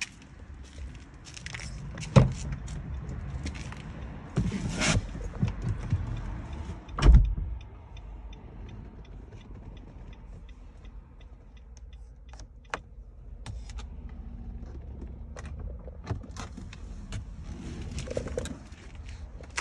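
Rustling and crunching steps, a sharp knock about two seconds in and a heavy thud about seven seconds in, like a car door being shut. Then a steady, even ticking from a Nissan Rogue's hazard-light flasher for several seconds.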